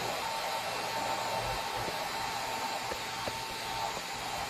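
Large-format laser marking machine homing its axes: a steady machine whir with a thin steady whine from the axis motors driving the marking head to its home position, the whine stopping about four seconds in.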